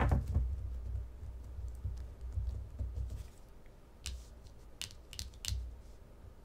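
A deck of tarot cards being handled: soft low bumps and rustling, then four sharp clicks in the second half.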